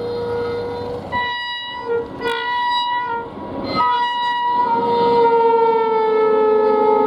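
Electric locomotive horn sounding in several blasts. A steady tone, then short toots about two seconds in, then a long loud blast from about four seconds in that slowly sinks in pitch.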